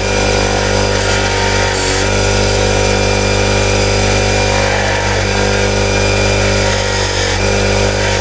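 Bench grinder's wire wheel running at full speed with a steady motor hum while a hand-plane frog part is held against it and wire-brushed clean. The tone shifts slightly a couple of times as the part is pressed to the wheel.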